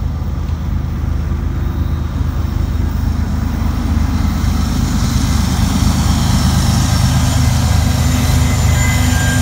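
Diesel locomotives of a freight train, an EMD SD40-2 and a GE ES44AC-H, working uphill as they approach: a loud, steady low engine drone that grows louder, with a higher hiss building from about halfway.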